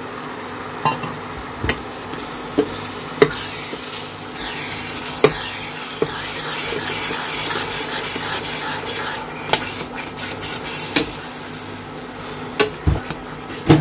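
A metal spoon stirring mashed turnip, spinach and fenugreek saag into a hot tadka in a steel pan. There is frying sizzle, which grows louder about four seconds in, and repeated sharp knocks of the spoon against the pan.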